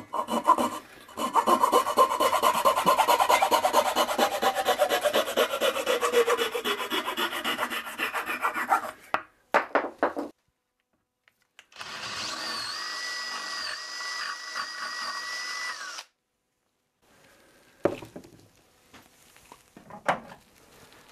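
Hand flush-cut saw cutting a broken wooden post stub off flush with a chair seat, in quick strokes whose tone falls steadily before stopping about nine seconds in, with a few last strokes after it. A steady whir with a wavering whistle follows for about four seconds, then a few light taps.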